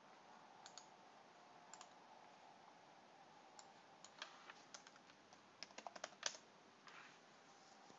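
Faint computer keyboard typing: a few scattered key clicks, then a quick run of keystrokes about six seconds in, over quiet room tone.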